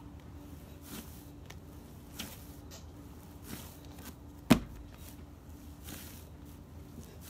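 Hands kneading pandesal bread dough on a table: soft, irregular squishing and pressing strokes, with one sharp thud about four and a half seconds in.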